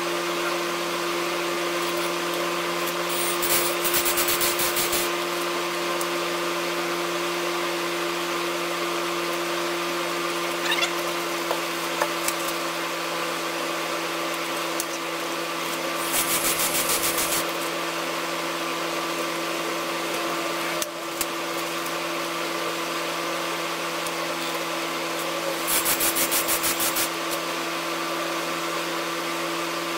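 Three short runs, each about a second and a half, of a cordless drill spinning a new valve against its seat in an LS aluminium cylinder head to lap it in with valve grinding compound, a fast even ticking. A steady background hum runs underneath throughout.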